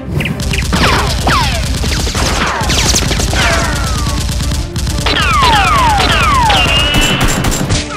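Dubbed-in sound effect of rapid automatic gunfire, with several falling whines sweeping down through the shots and a brief high steady tone near the end.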